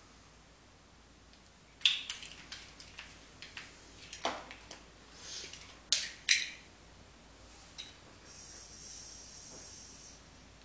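Small sharp clicks and taps of an e-liquid dropper bottle and a metal dripping atomizer being handled and its drip tip refitted, then a steady soft hiss for about two seconds near the end as a drag is drawn through the dripper.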